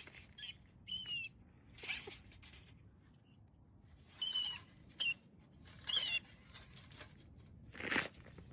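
A caught wild animal squeaking in short, high-pitched calls, several times over, with brief rustling and a louder scuffle near the end as it is released.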